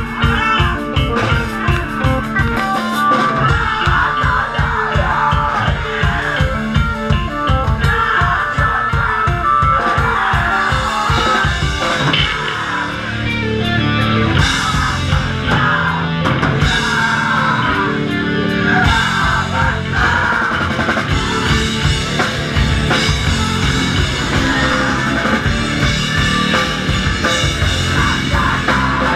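Live rock band playing loud, amplified electric guitars and bass over a steady drum-kit beat.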